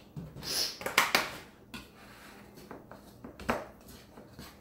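A short splash of milk poured from a plastic gallon jug into a plastic mixing bowl, then sharp knocks as the jug is set down on the counter about a second in. After that, hands squish and mix a stiff flour dough in the bowl, with scattered small clicks and another knock of the bowl on the counter.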